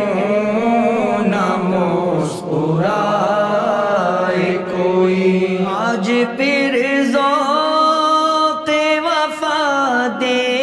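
A man's voice singing an Urdu devotional qasida in a slow, chant-like melody. He draws the words out over long held notes that slide and waver between pitches.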